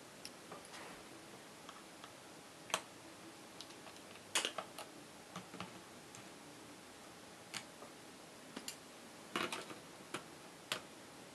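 Small sharp clicks and ticks of a screwdriver working the two screws out of the bottom of a laptop's screen bezel, with handling taps, about a dozen scattered at irregular intervals.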